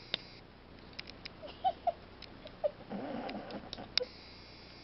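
A sleeping dog letting out a few small, high whimpering squeaks and then a brief low grumble, over scattered light clicks.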